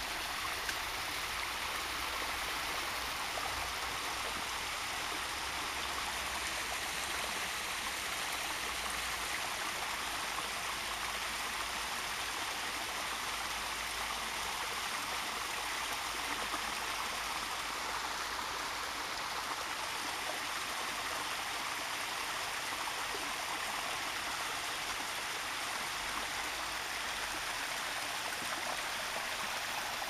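Small waterfall and stream, water rushing steadily over rocks.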